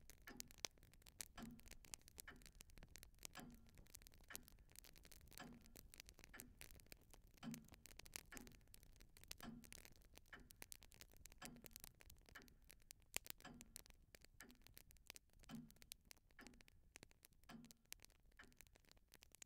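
Faint clock ticking steadily, about once a second, with lighter irregular clicks between the ticks.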